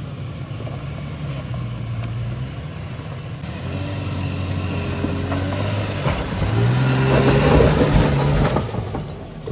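Off-road 4x4's engine running under load on a rough trail, getting louder and rising in pitch as it is revved about two-thirds of the way in, then easing off near the end.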